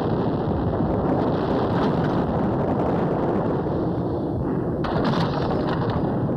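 Battle soundtrack of artillery and gunfire: a dense, steady din of firing in which no single shot stands out.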